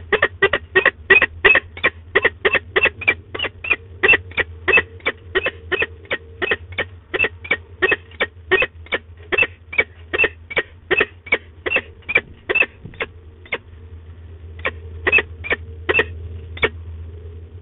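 Peregrine falcon calling in a rapid, even series of short calls, about three a second, pausing about thirteen seconds in, then four more calls near the end.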